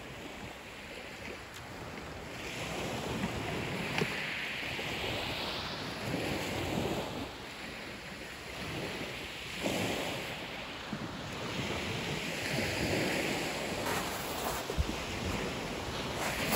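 Small sea waves breaking and washing up a shingle beach, the hiss of the surf swelling every three to four seconds, with a little wind on the microphone.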